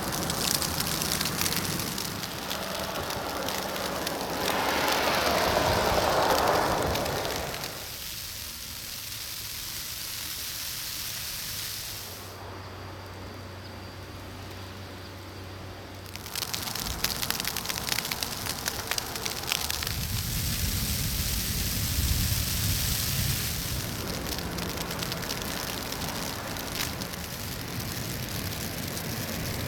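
Heavy wet snow falling with a steady, rain-like patter and crackle. The sound changes abruptly several times.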